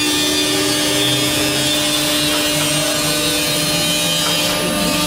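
Two-spindle CNC router running, its spindles cutting into a board: a steady whine over the hiss of cutting, with a lower motor tone that shifts in pitch.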